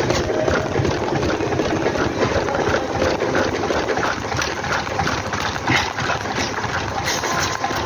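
Treadmill running at 13 km/h: the motor and belt give a steady mechanical hum under an even, repeating rhythm of running footfalls on the deck.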